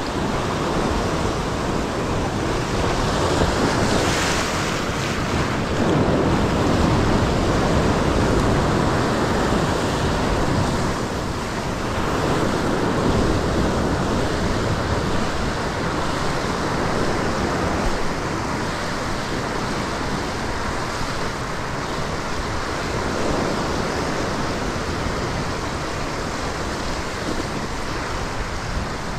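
Ocean surf breaking and washing over a rock ledge, a steady loud rush that rises and falls in surges, with wind buffeting the microphone.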